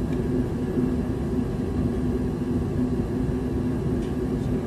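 Steady low mechanical hum of a machine running in the workshop, with a constant low tone and no change in speed. A single sharp click comes at the very end.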